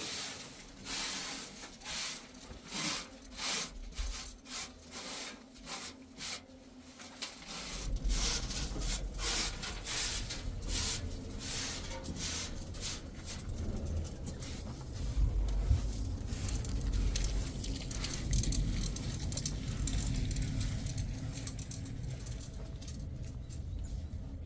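Heavy rain with many irregular sharp taps, like drops pattering on a surface. About eight seconds in a strong low rumble of wind or rushing water joins it and runs on beneath the patter.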